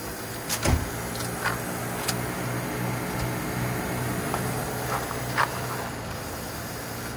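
Range Rover Classic's Rover V8 being cranked by its starter, turning over slowly in a steady rhythm without firing, with a sharp clunk about half a second in and a few lighter clicks. The slow crank is on jump-box power, with fuel pressure still not built up at the rail.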